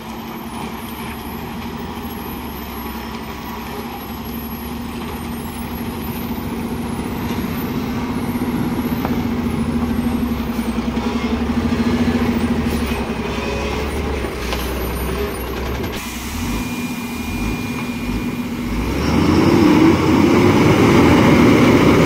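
A heavily loaded Ashok Leyland multi-axle truck's diesel engine labouring at low speed through a tight hairpin bend, growing slowly louder as it comes round. In the last few seconds it gets much louder and fuller as the truck passes close by.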